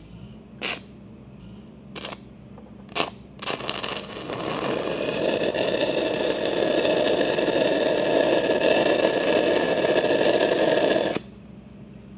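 Stick-welding arc from a 6010 electrode putting a tack on steel pipe: a steady hiss and crackle that builds over about a second from three and a half seconds in and cuts off suddenly as the arc is broken near the end. A few sharp knocks come before it.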